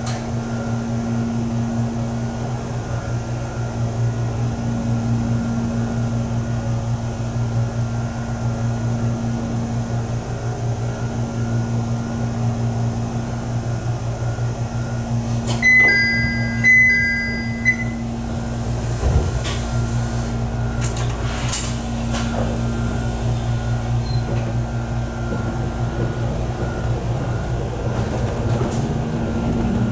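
Cabin sound of a Jōmō Electric Railway 700 series electric train car: a steady low hum and rumble. About halfway through, a high ringing tone sounds for about two seconds, broken twice, with a few sharp clicks.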